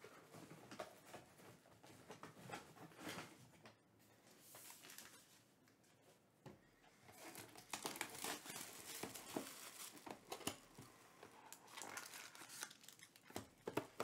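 Plastic shrink-wrap crinkling and tearing as it is pulled off a sealed box of trading cards, busiest in the second half.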